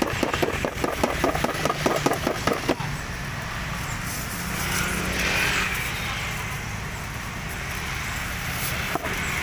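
Steady street traffic running past, with one vehicle swelling louder about five seconds in. Over the first three seconds, quick light taps or clicks sound about six times a second, then stop.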